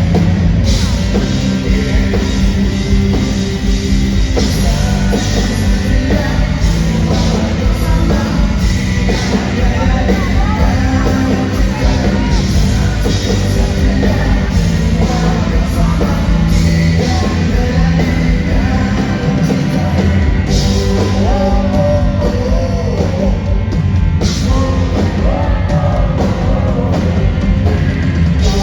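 Rock band playing live with drums, guitars and a sung lead vocal, loud and continuous throughout.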